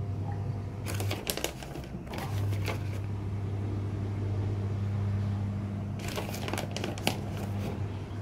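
Light rustling and clicking from handling parchment paper and a baking tray while shredded cheese is sprinkled onto tortillas, in three short flurries, over a steady low hum.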